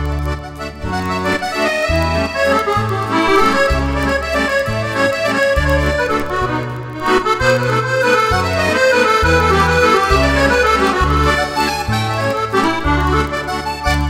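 Roland FR-8x digital accordion playing an Argentine waltz: melody over bass notes that change about once a second, with a falling run in the middle, closing on a held chord near the end.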